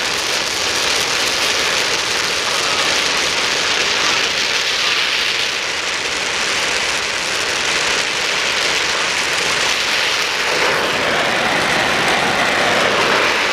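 Lincoln Port-a-Torch oxy-acetylene torch burning a neutral flame with a steady rushing hiss while fusion welding mild steel. Its tone shifts lower about ten seconds in.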